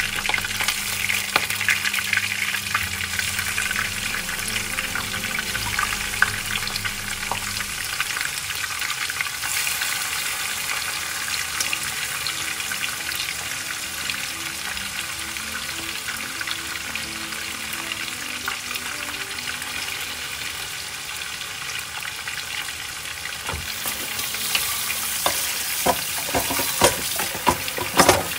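Marinated spiced chicken pieces sizzling and spattering as they fry in hot oil in a wok. The sizzle grows louder near the end, with a few sharp pops.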